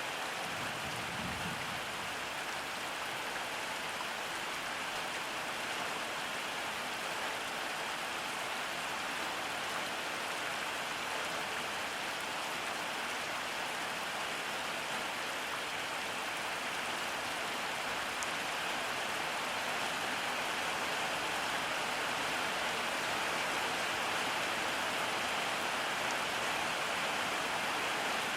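Steady rain falling: an even, unbroken hiss of drops that grows slightly louder near the end.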